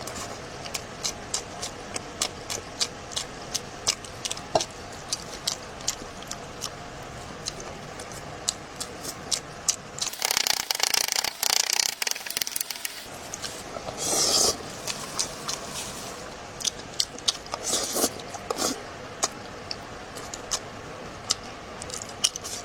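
Close-miked eating: chewing with many sharp wet mouth clicks and smacks. About ten seconds in there are a few seconds of louder hissing noise, and a shorter burst follows a second later.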